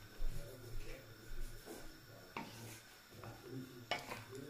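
A wooden spatula stirring a pan of thickening sauce and vegetables: soft rubbing and scraping, with three sharp knocks of wood on the pan, one at the start, one halfway through and one near the end, over a low steady hum.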